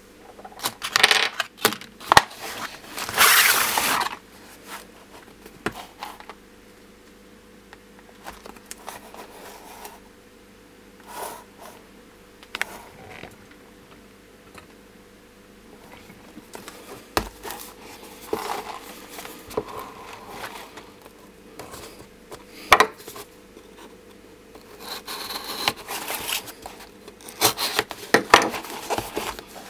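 Copper rifle bullets clicking against each other and the table, and cardboard bullet boxes being picked up and handled: scattered light clicks, scrapes and rubbing, busiest in the first few seconds and again near the end.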